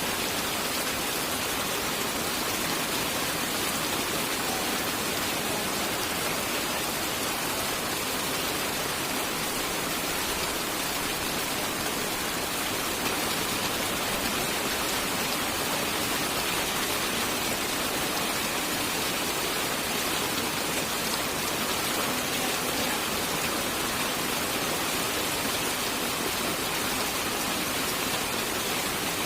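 Steady rain falling, an even hiss that does not rise or fall, with no thunder.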